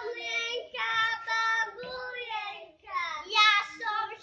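Young children singing a song together in high voices, phrase after phrase.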